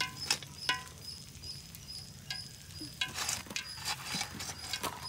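Light clicks and taps of a perforated metal frying ladle loaded with fried fish pieces, with a denser rustling clatter about three seconds in as the fish is tipped off the ladle onto a banana leaf.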